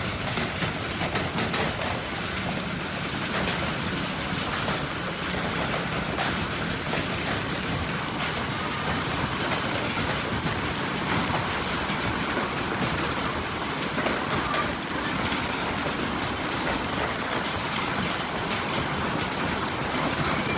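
Steady, loud rushing noise of a storm, wind and heavy rain, with no clear rhythm or tone.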